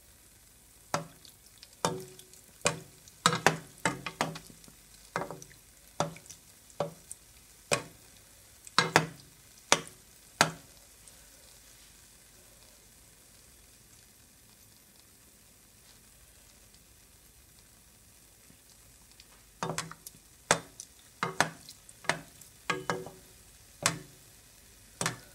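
Float bakes frying gently in oil, a faint steady sizzle, under sharp knocks and taps of a slotted spoon against the nonstick pan as oil is spooned over the dough. The knocks come in a run for about ten seconds, stop for several seconds, then start again near the end.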